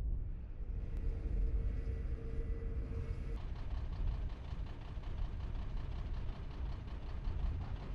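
Steady low outdoor rumble, with a faint steady hum over it that stops abruptly about three seconds in.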